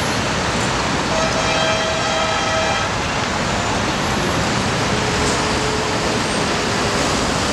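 Steady city street traffic noise heard from high above. About a second in, a held tone with overtones sounds for about two seconds, and a fainter, slightly falling tone comes in near the end.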